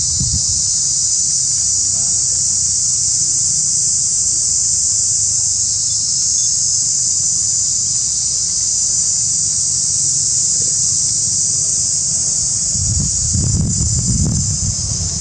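Steady, high-pitched insect chorus, with a low rumble swelling near the end.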